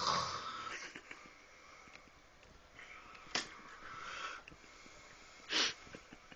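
A person snoring in sleep: a loud rasping breath at the start, a longer, softer breath about three seconds in with a short sharp burst inside it, and another short burst about five and a half seconds in.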